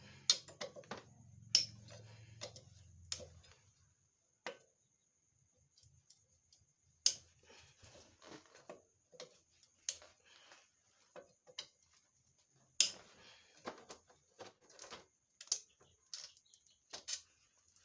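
Irregular sharp metallic clicks and clinks of hand tools and engine parts while a motorcycle engine's magneto cover side is being dismantled. A faint low hum runs under the first three seconds or so.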